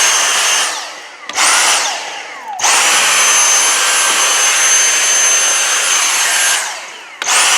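Dyson V6 Trigger cordless handheld vacuum running in short trigger bursts: a high-pitched motor whine that cuts off and winds down, spins back up about a second and a half in, stops again, then runs for about four seconds before winding down and starting once more near the end.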